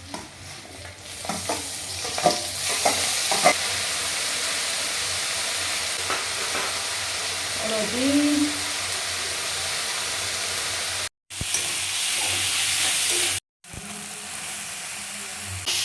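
Onions and tomatoes frying in hot oil in a kadhai, a steady sizzle that grows louder about a second in, with a spatula stirring and knocking against the pan a few times in the first few seconds. The sound drops out briefly twice in the second half.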